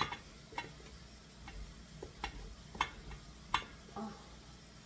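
Cheese grated by hand on a stainless steel box grater over a metal bowl: a string of short rasping strokes, about one or two a second.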